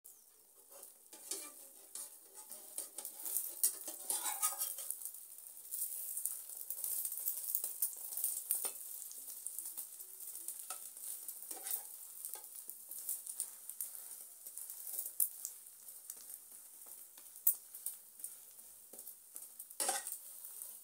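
Egg omelette sizzling and crackling in a hot non-stick frying pan, with a few scrapes and taps of a spatula against the pan as the omelette is lifted and folded.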